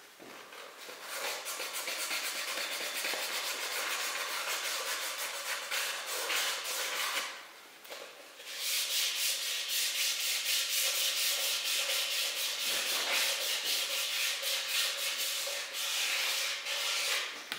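Hand abrasive cleaning on the cast-iron engine block of a Belarus 820 tractor, as the block is readied for its cylinder liners: a fast, even rasping scrape at several strokes a second. It comes in two long spells with a short pause about eight seconds in.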